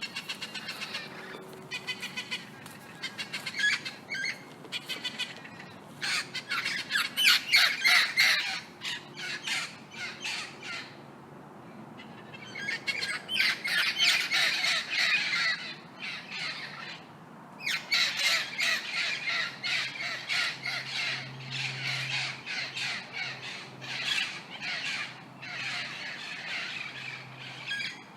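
Several parrots squawking, with harsh calls repeated in quick runs that break off for short pauses a few times.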